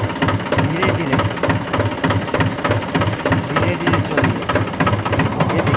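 Tractor diesel engine running at idle, with a steady, rapid knocking beat.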